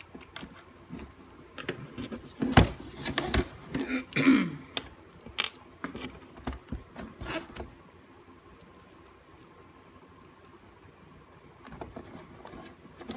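Handling noises: a run of sharp clicks, knocks and rattles for several seconds, with a brief squeak in the middle, then quiet with a few more knocks near the end.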